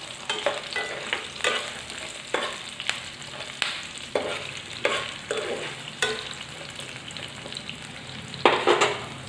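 Chopped onions sizzling in hot oil in a kadai, with a spatula scraping and stirring them about once or twice a second and a louder run of strokes near the end. The onions are being fried until their raw smell is gone.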